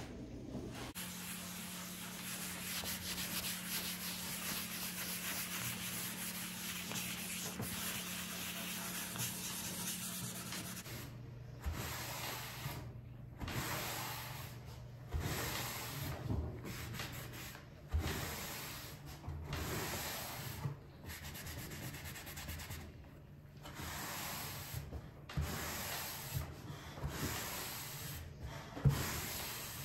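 A cloth rubbed by a gloved hand over a stained wooden dresser top, working the stain into the veneer in repeated strokes about a second apart. It is preceded by a steady hiss with a low hum.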